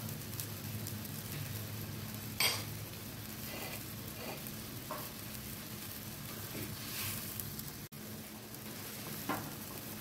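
Spicy seafood curry simmering and bubbling in a nonstick wok on a gas stove, a steady sizzling hiss over a low hum, with a sharp click about two and a half seconds in.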